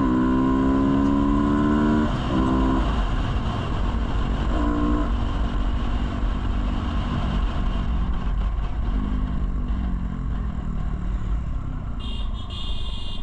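Sport motorcycle accelerating hard in a short drag run. The engine pitch climbs, drops at a gear change about two seconds in and climbs again, then the revs ease off. Heavy wind buffeting on the microphone runs under the engine throughout.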